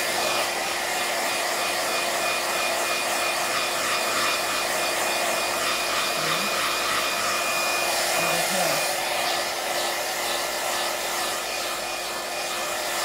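iTeraCare terahertz wand's built-in fan blowing warm air, a steady whir with a constant hum; a thin high tone within it drops out about nine seconds in.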